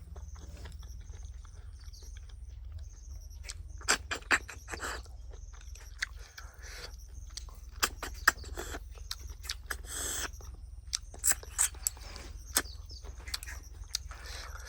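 A person eating close to the microphone: irregular chewing, lip smacks, clicks and short slurps.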